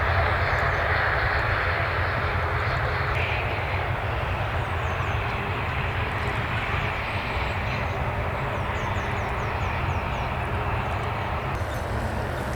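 Airliner engines heard from the airport perimeter, a steady roar that slowly fades as the aircraft moves away. Small birds chirp faintly in the background.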